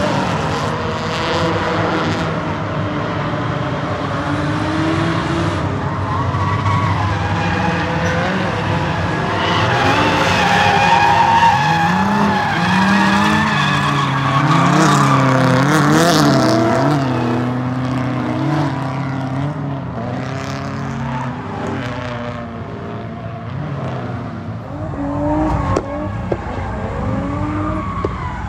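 Straight-piped Pontiac G8 GT's V8 revving hard, rising and falling again and again, loudest in the middle, with tyres squealing.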